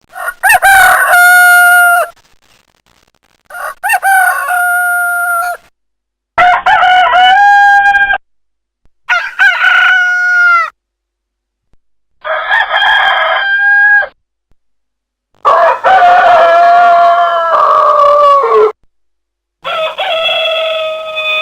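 Rooster crowing: seven cock-a-doodle-doo calls in a row, each lasting about two seconds, with short silent gaps between them; the last call is the longest.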